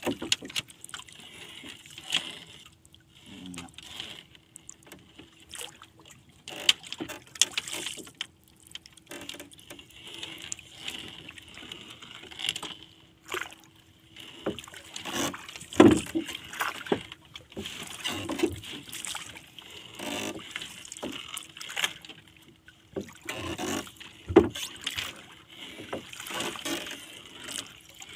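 Irregular knocks and scrapes on a small wooden fishing boat as a longline is hauled in by hand over the side, with water slapping at the hull. The loudest knocks come about halfway through and again near the end.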